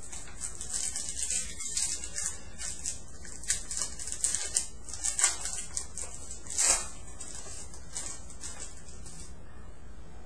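Trading cards and their pack being handled: an irregular crinkling rustle with a louder burst about two-thirds of the way through, dying away near the end.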